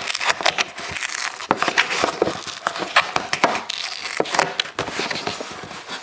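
Self-adhesive sealing flap of a cardboard mailing box being peeled open: an irregular run of crackles and small rips as the glued strip pulls away from the cardboard.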